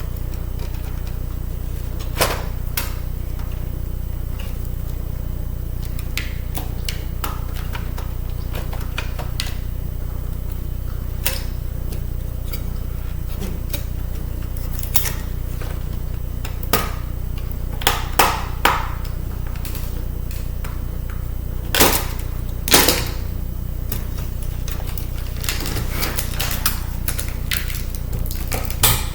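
Scattered clicks and knocks of small metal and plastic parts as a laptop CD drive is pried and taken apart, loudest in a few quick clusters midway and a run of small ticks near the end, over a steady low hum.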